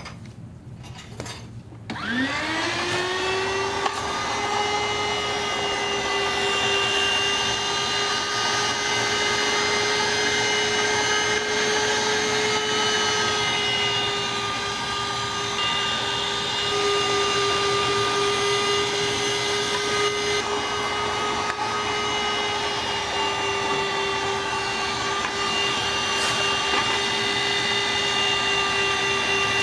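An electric kitchen machine's motor switches on about two seconds in, rising in pitch as it spins up, then runs at a steady high pitch.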